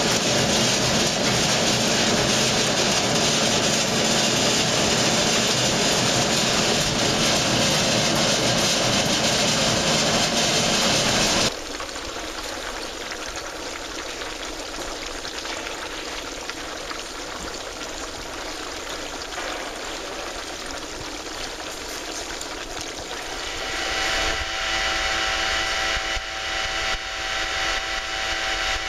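A grape-handling machine in a concrete pit running loudly and steadily, cutting off abruptly about twelve seconds in. Then a quieter steady hiss from fermenting grape must. In the last few seconds a steady motor hum with several fixed tones joins, along with water spraying over the top of a fermentation vat to cool it.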